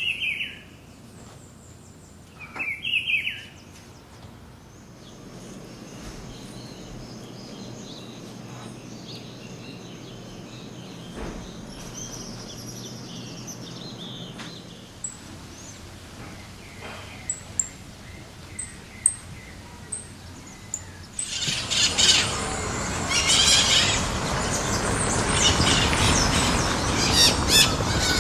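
Wild birds calling and chirping: scattered short, high chirps at first, then a denser, louder chorus of chirps over a noisy outdoor background from about three-quarters of the way in.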